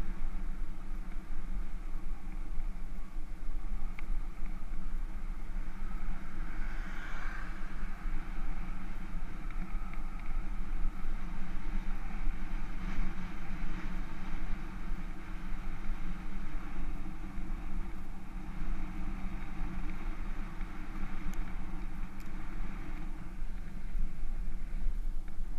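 Steady wind rush and road rumble from a bicycle rolling along an asphalt road, picked up by a handlebar-mounted camera's microphone.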